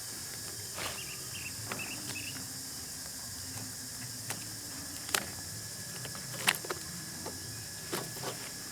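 Steady high insect chorus, with a few short chirps about a second in and scattered sharp clicks, the loudest about five and six and a half seconds in.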